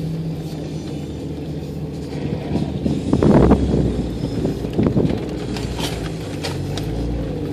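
Jeep engine running steadily, heard from inside the cab while it crawls an off-road course, with two louder, rough surges about three and five seconds in.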